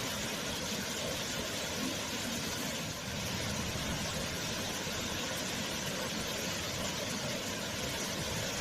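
Waterfall: the steady rush of falling water, even and unbroken.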